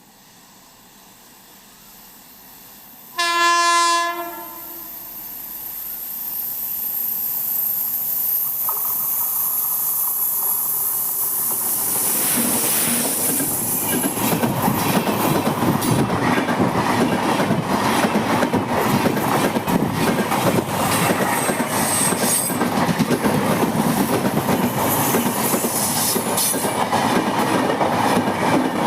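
Train horn sounds once, about a second long, then the train approaches and runs past, getting steadily louder, with its wheels clattering over the rail joints.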